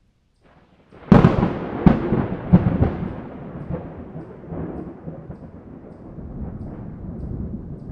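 A sudden loud crack about a second in, then a few more cracks over the next two seconds and a long rolling rumble that slowly fades, in the manner of a thunderclap.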